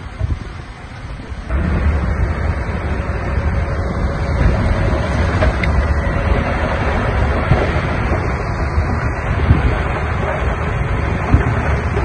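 Diesel engine of heavy earthmoving machinery running at work, mixed with wind rumbling on the microphone. Quieter for about the first second and a half, then it comes up louder and stays steady.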